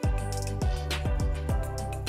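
Background music with sustained notes over a steady beat.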